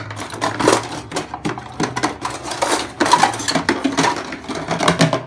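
Plastic soy sauce bottle being handled and its screw cap twisted off: a dense run of sharp plastic clicks and crackles.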